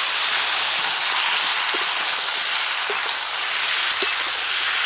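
Raw chicken pieces, rubbed with salt and turmeric, sizzling in hot oil with whole spices in a wok: a loud, steady frying hiss as the meat first hits the oil.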